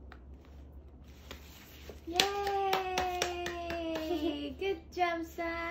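Hands clapping, about four claps a second, under a long drawn-out cheering voice that slowly drops in pitch, starting about two seconds in; a second held cheer comes near the end. It is applause for a just-finished 100-piece jigsaw puzzle.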